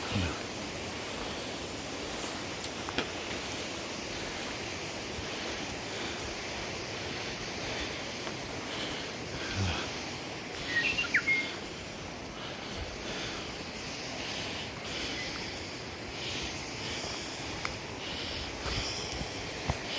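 Steady outdoor background noise with birds chirping. A quick cluster of sharp, high chirps about eleven seconds in is the loudest moment, just after a low thump.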